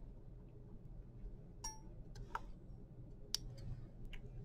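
A handful of faint, sharp clicks and small metallic ticks from steel surgical instruments, a needle holder and forceps, handled while suturing.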